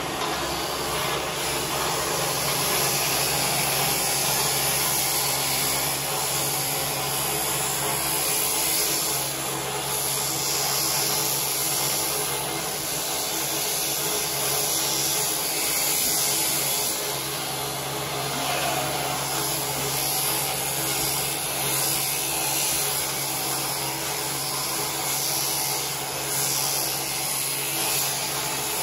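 Electric sheep-shearing handpiece running steadily with a constant hum while its cutter clips through a sheep's fleece.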